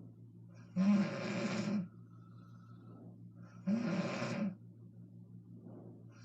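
A woman snoring in deep sleep: two loud, rattling snores about three seconds apart, each lasting about a second, with quieter breathing between them.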